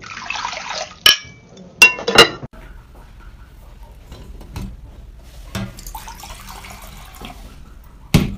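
Liquid pouring from a ladle into a ceramic cup, followed by three sharp clinks of dishware between about one and two seconds in. Then a few quieter knocks of kitchenware, with a loud one near the end.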